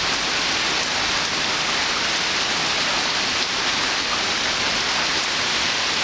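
Heavy summer thunderstorm rain falling steadily, a dense even hiss of rain coming down hard.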